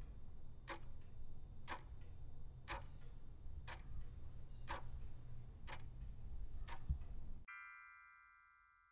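Countdown timer ticking once a second, seven ticks over a low rumble. Near the end the ticking stops and a chime of several tones rings out and fades, marking time up.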